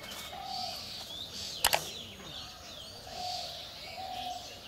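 Birds calling around a village pond: three short, steady low notes and scattered higher chirps. A sharp double knock sounds about 1.7 s in.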